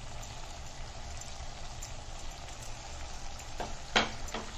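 Oil and masala in a kadai sizzling with a steady, even hiss. A few sharp clicks come near the end, the loudest about four seconds in.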